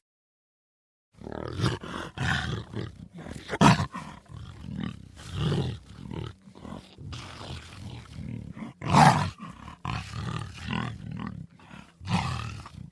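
Puma (cougar) calling in a run of repeated rough calls. They start about a second in, and the loudest come about a third of the way in and again about two-thirds in.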